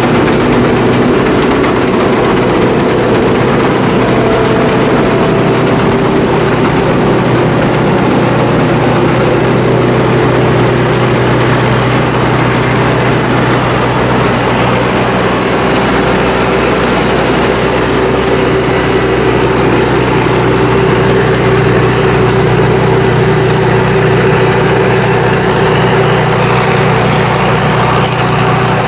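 Sakpattana SS-300 combine harvester running steadily under load, its five-cylinder diesel engine and threshing machinery making a constant loud drone with a thin high whine over it.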